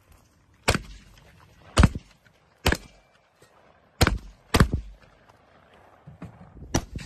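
Six gunshots from a shouldered long gun, fired at uneven intervals of about a second, with two close together a little past the middle. A softer knock comes shortly before the last shot.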